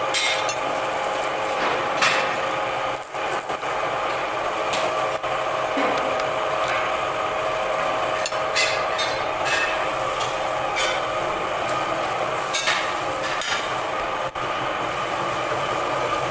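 A steady machine hum with a held tone, with scattered sharp metallic knocks and clinks, about a dozen, at uneven intervals, from work on a steel concrete mixer drum.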